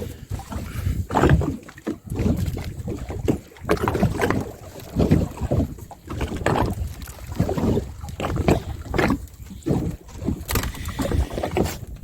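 Water slapping unevenly against the hull of a small open boat at sea, with wind buffeting the microphone.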